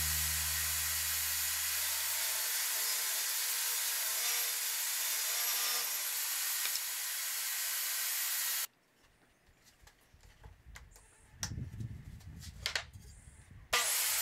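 Table saw made from a 7¼-inch circular saw running and ripping a board along its fence. The sound stops abruptly about nine seconds in, leaving a few faint knocks. Near the end the saw starts up again with a quickly rising whine.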